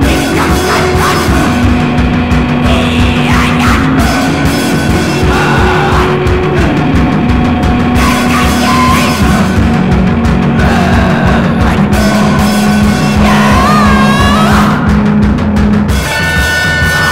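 Noise-rock song from a bass-less three-piece: guitars hold long notes that slide in pitch over busy drums.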